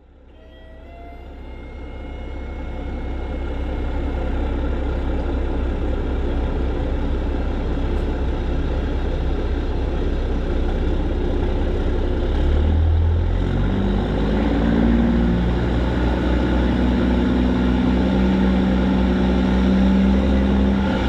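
A semi truck's PACCAR MX13 diesel with a full emissions delete, running through straight pipes: a deep, steady drone that fades in over the first few seconds. About twelve seconds in, the engine note changes and a steadier, pitched drone comes up.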